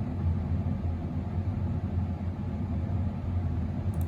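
Steady low rumbling hum of background noise, with a faint click near the end.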